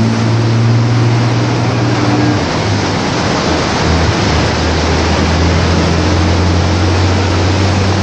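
Engine of the lifeboat's towing tractor running steadily as it hauls the trailer away, its note dropping about halfway through, over the steady rushing noise of heavy surf.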